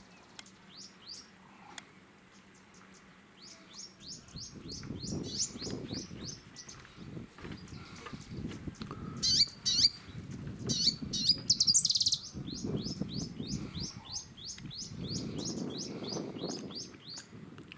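Wild birds calling in long runs of short, high chirps repeated several times a second, with a few louder calls near the middle. A low rushing noise swells and fades underneath from about four seconds in.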